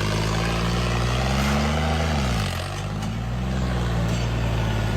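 Diesel tractor engine running hard under load in a tractor tug-of-war. About two seconds in its speed sags, then picks back up.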